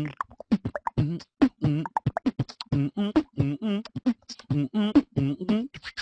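A man's voice doing beatbox-style vocal percussion: a quick, rhythmic run of mouth clicks and short pitched syllables.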